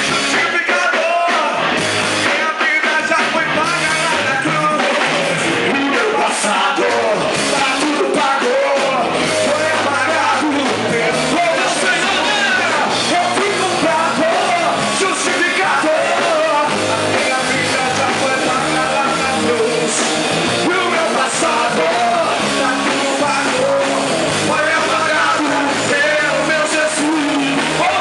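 Worship band music with a group of voices singing and shouting along, loud and steady throughout.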